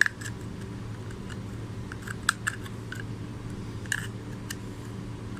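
Light, scattered plastic clicks and taps from handling the opened phone-charger casing and its circuit board, with a cluster of clicks about two seconds in and another near four seconds.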